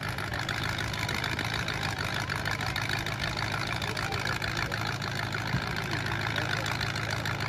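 Demolition derby car engines idling steadily.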